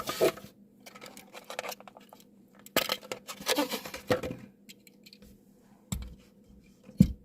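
Handling a Mini GT die-cast model car and its plastic and cardboard packaging: several short bursts of clicking and scraping. Two low knocks follow near the end, the second one the loudest.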